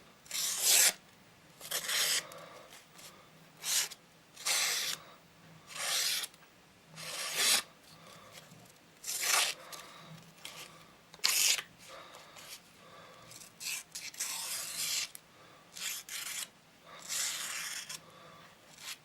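Penknife blade drawn across a small whetstone in repeated scraping strokes, about one stroke every second or so, some strokes longer than others.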